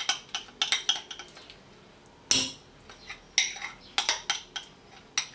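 A spoon scraping pork lard out of a tub into a stainless steel pot, with irregular sharp clinks and scrapes against the tub and pot and a louder knock a little over two seconds in.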